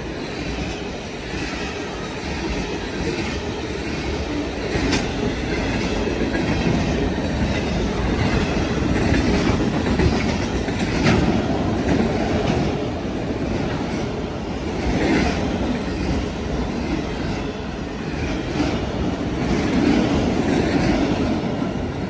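Union Pacific freight train of tank cars and autorack cars passing close by at speed: a steady rumble of steel wheels on the rails, with a clickety-clack and a few sharp clicks as the wheels cross rail joints.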